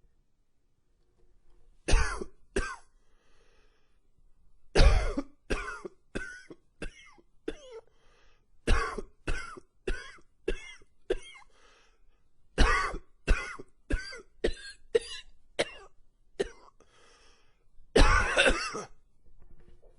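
A man coughing in fits: two coughs about two seconds in, then three runs of six or seven quick coughs each, and a longer, harsher hacking cough near the end. It is an allergy cough, as the uploader has it.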